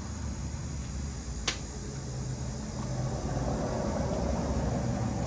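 Steady mechanical hum like a running fan, with one sharp click about a second and a half in.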